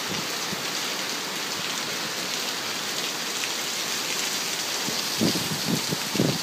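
Heavy thunderstorm rain falling in a steady hiss. From about five seconds in, a run of short, irregular low thumps joins it.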